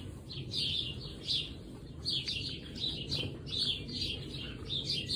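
Small birds chirping, several short high chirps a second, with a brief lull about a second and a half in, over low background noise.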